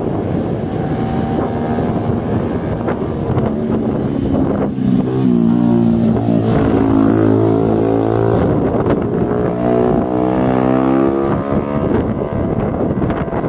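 Landing airliner passing low overhead on approach: an engine drone that swells about five seconds in, glides in pitch and fades again after about eleven seconds, over wind buffeting the microphone.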